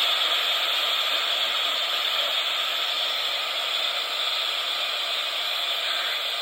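Steady hiss of radio static from a receiver, even and unchanging, with no voice or tones on it.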